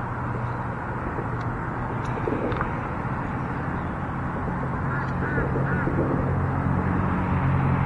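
Steady low rumble of traffic on the highway bridge overhead, with about three short honking waterfowl calls around five seconds in.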